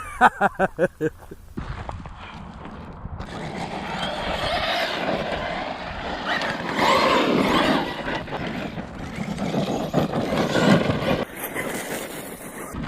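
Arrma Kraton 6S EXB RC monster truck running on its Hobbywing Max6 brushless system with a 1650 kV motor: a high motor whine that rises and falls with the throttle, over the rush of its tyres on the ground. It is preceded about a second in by a quick series of short pitched pulses.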